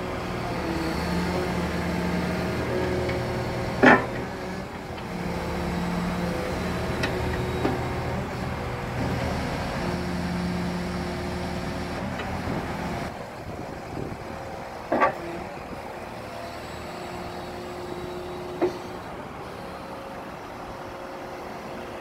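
JCB Hydradig wheeled excavator's diesel engine running under hydraulic load, the sound swelling three times in the first half as the machine works. Four sharp knocks stand out over it, the loudest about four seconds in.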